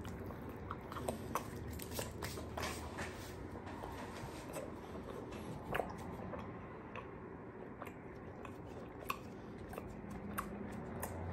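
Two people chewing chili-lemon mango candy, with faint mouth clicks and smacks scattered through.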